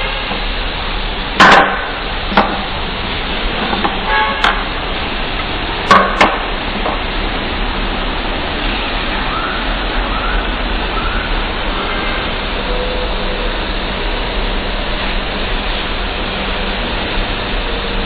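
A few sharp knocks in the first six seconds as stripped coaxial cables are set down one by one on a wooden table, over a steady noise with a low hum.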